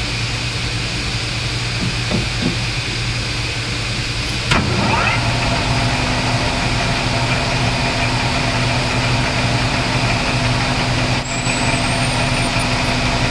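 Metal lathe running steadily, drilling a brass workpiece with a twist drill held in the tailstock. A sharp click about four and a half seconds in, after which the sound gets slightly louder and a steady drone joins the machine's hum.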